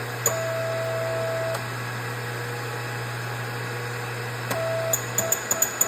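Powered shop press running to push the bearing races onto a TVS supercharger snout's input shaft: a steady motor hum with a mid-pitched whine cutting in and out, and a run of sharp clicks near the end.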